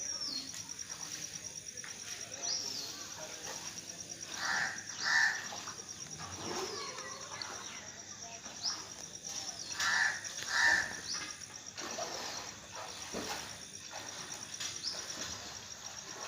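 Outdoor ambience of birds calling, with short high downward-sweeping calls every few seconds and louder, harsher calls twice, over a steady high, rapidly pulsing insect trill.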